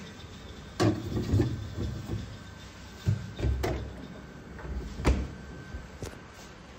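Refrigerator being handled: steel vessels knocked against and set on its shelves, and its door swung shut. A handful of knocks and thuds, the loudest about five seconds in.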